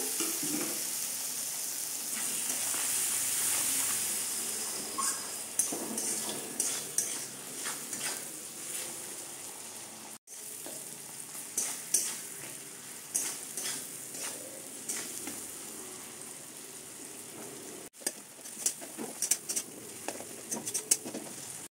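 Chopped tomato sizzling as it fries in hot oil and spices in a metal kadai. The sizzle is steady for the first few seconds; after that, a metal spatula scrapes and clinks against the pan again and again as the tomato is stirred and fried down into the masala.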